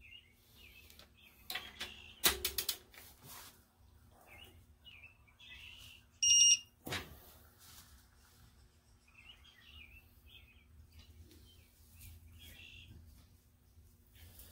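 Torque wrench ratcheting on a cylinder head bolt of a Mopar 383 big-block during final torquing to 70 foot-pounds: a few quick clicks about two seconds in. About six seconds in comes a short electronic beep, the loudest sound, then a knock, with faint bird chirps throughout.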